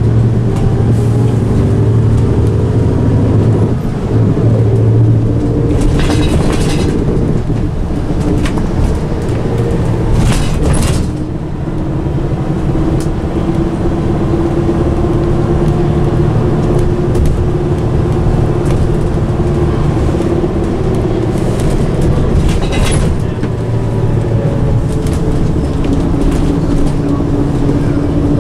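Volvo B10M-55 bus with a mid-mounted straight-six diesel and ZF Ecomat automatic gearbox, heard from inside the saloon while under way. The engine note rises and falls, with a few short knocks and rattles along the way.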